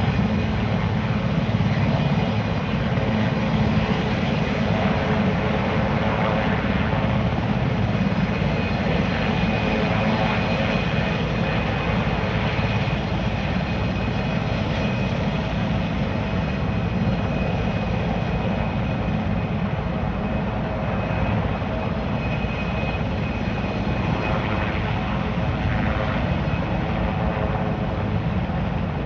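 Heavy-lift helicopter hovering low while it fills its water tank, its rotors and engines running steadily and loudly with a fast, even rotor beat.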